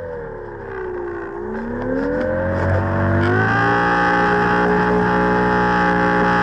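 RC model airplane's motor and propeller, heard from the plane itself. The pitch sags low at reduced throttle, climbs over about two seconds as the throttle comes up, then holds steady at power from a little past halfway.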